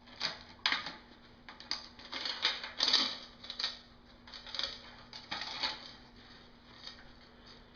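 Metal links of a lubricated bicycle chain clinking and rattling as the chain is handled, in a run of short irregular clicks that thins out near the end.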